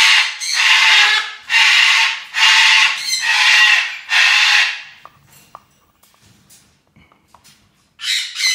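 Green-winged macaw screaming: a run of about six loud, harsh squawks one after another in the first five seconds, then a few faint clicks of its beak on a plastic bottle, and one more squawk near the end.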